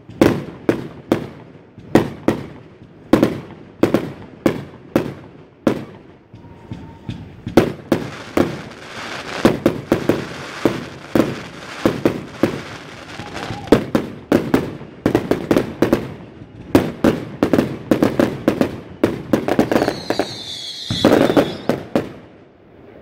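A multi-shot fireworks cake (Vulcan/Linders Grand Cake Box, 20–50 mm tubes) firing a fast run of shots and bursts, about two a second at first, then a denser barrage with crackle between the bangs. A whistle sounds near the end, and the firing stops just before the end.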